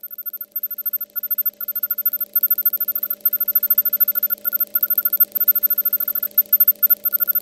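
Electronic buzzing sound effect: several steady tones pulsing fast and evenly, about ten times a second, broken by short irregular gaps.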